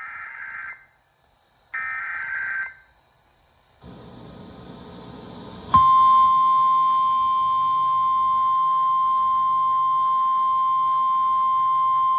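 NOAA Weather Radio alert on a weather radio receiver: two short bursts of the digital SAME header data, then about six seconds in the steady 1050 Hz warning alarm tone comes on with a hiss of radio noise behind it. It marks the start of a new National Weather Service warning.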